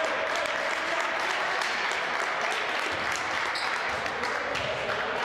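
Spectators in the bleachers applauding and clapping steadily, ending abruptly near the end.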